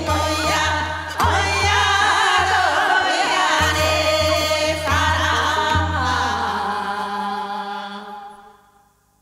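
A woman singing seodo sori, the folk song of Korea's northwestern provinces, her voice wavering in pitch, over steady low drum strokes. The drum stops about six seconds in while she holds a long final note that fades out near the end.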